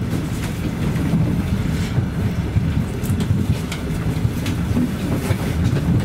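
ET2M DC electric multiple unit running at speed, heard from inside the carriage: a steady low rumble of wheels on rails with occasional light clicks over the rail joints.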